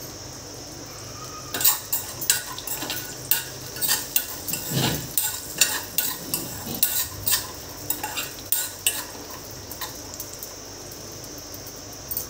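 A metal spoon stirring and scraping cashews and raisins frying in ghee in a metal kadai: a quick, irregular run of clicks and scrapes against the pan over a faint steady sizzle. The stirring thins out about nine seconds in.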